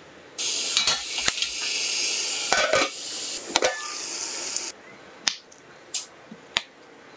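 Steam hissing in a steamer, with a few knocks and clatters of the glass dish and pot. It cuts off suddenly, followed by three light taps of a spatula against the glass dish.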